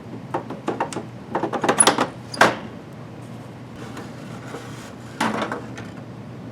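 Plug-in unit of an HP 140A oscilloscope being unlocked and slid out of its compartment: a run of small clicks and rattles over the first two and a half seconds, ending in a sharp click, then a brief scrape about five seconds in.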